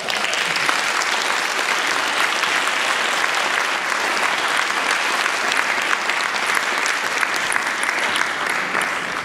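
Audience applauding, a steady dense clapping that starts at once and dies away right at the end.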